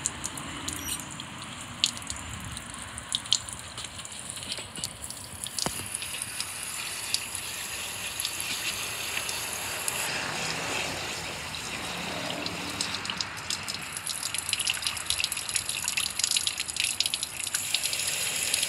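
Garden hose nozzle on a light spray rinsing salt build-up out of an outboard engine's powerhead, water hissing onto the parts and dripping off them. It grows louder in the last few seconds.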